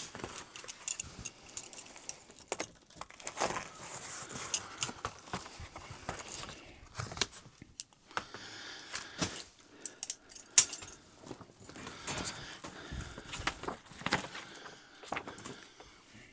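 Crib parts being handled and fitted together: scattered knocks, clicks and light rattling with some rustling, and one sharp knock about ten seconds in.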